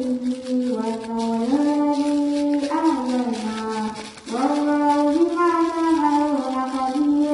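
Background music: a single horn-like melody of held notes stepping up and down, with a brief break about four seconds in.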